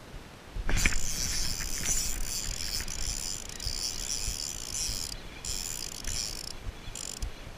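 Spinning reel cranked steadily to retrieve a lure, a continuous mechanical whir of the reel's gears and rotor. It starts suddenly under a second in and stops briefly twice near the end before resuming.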